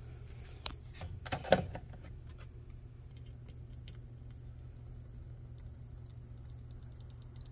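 Crickets trilling steadily over a low hum, with a few faint clicks and a soft knock about a second and a half in.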